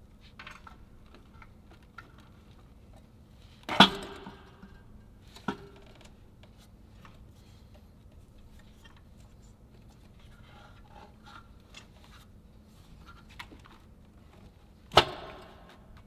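Metal clunks, clicks and rubbing of a cast-aluminium intake manifold being lowered onto a Nissan GT-R engine and worked into place: two sharp knocks about four and fifteen seconds in, with a lighter knock between them.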